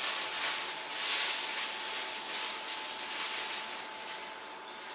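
Plastic bag rustling and crinkling while dried apple pieces are handled, louder in the first couple of seconds and then fading.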